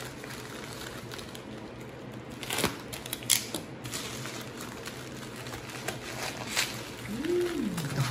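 Trading-card pack wrappers crinkling and cards being handled, with a few sharp crackles over a low steady hum.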